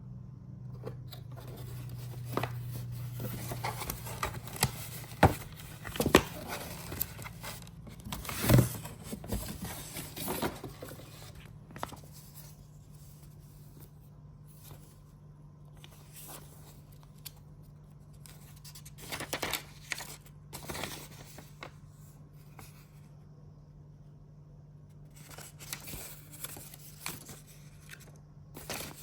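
Plastic packaging and grooming-kit parts being handled: irregular clicks, taps and rustling, with a few sharper knocks in the first ten seconds, over a steady low hum.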